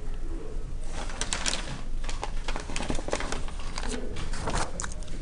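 Classroom with students writing: irregular light clicks and rustles of pens and paper, no one speaking.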